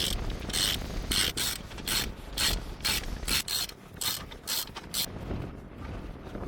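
Ratchet wrench clicking in short back-and-forth strokes, about two a second, turning a spark plug. The clicking stops about five seconds in.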